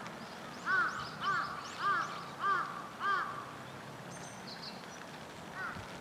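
A crow cawing five times in an even series about half a second apart, then once more, fainter, near the end.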